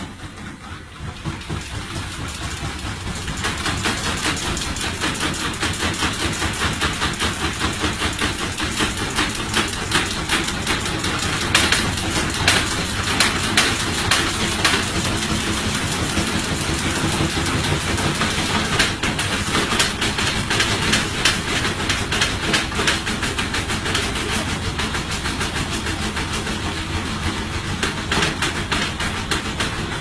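Aging front-loading washing machine spinning out of control. The whole cabinet shakes and rattles with a fast, continuous knocking that grows louder over the first few seconds and then keeps up.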